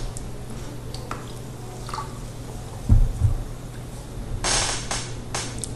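Room background with a steady low hum and a few faint clicks, a low thump about three seconds in, and two short hissing bursts near the end.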